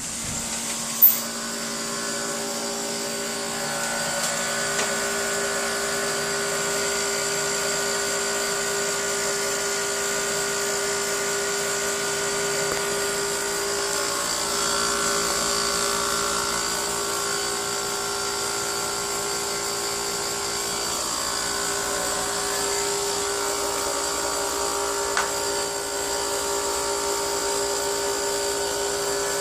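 Midea inverter air conditioner running with a steady whining hum made of several fixed tones, the noise its owner is complaining about. A sharp click about a second in.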